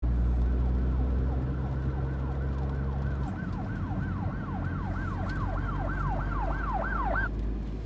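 Electronic siren sounding in quick, repeated falling wails, about three a second, faint at first and growing louder until it stops shortly before the end. Underneath runs the steady low drone of the car being driven, heard from inside the car.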